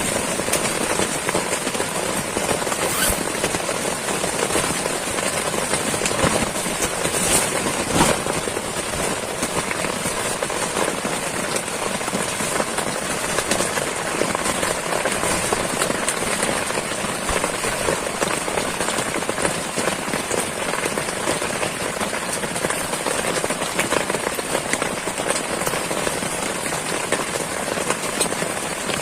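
Heavy pouring rain falling steadily, a dense hiss of countless small drop impacts.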